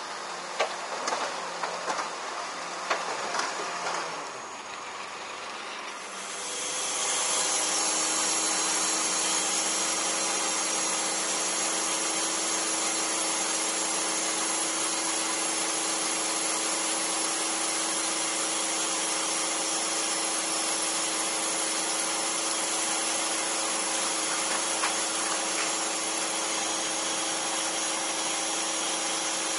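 38 m truck-mounted ladder lift running its lift machinery: a steady mechanical whir with a low hum. It comes up about six seconds in, after a few seconds of scattered taps and knocks.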